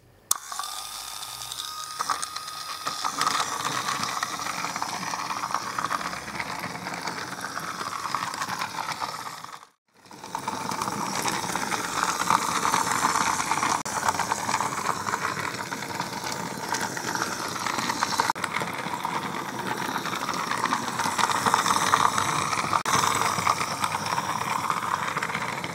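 Battery-powered toy fire engine running along its plastic track, its small geared motor whirring steadily with a fine, rapid clicking. The sound cuts out for a moment about ten seconds in, then resumes.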